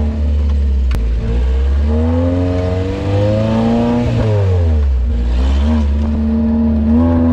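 Maruti Suzuki Gypsy's petrol engine working hard off-road: the revs climb to a peak about four seconds in, fall away sharply, then hold steady, heard partly from inside the cabin.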